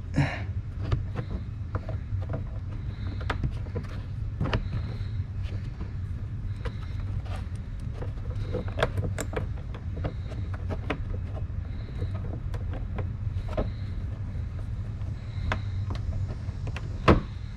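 Scattered light clicks and taps from the plastic under-panel and its push clips being handled and fitted, over a steady low hum, with one sharper click near the end.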